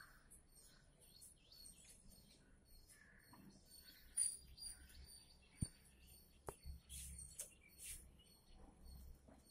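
Faint, scattered bird chirps, with two sharp clicks about the middle.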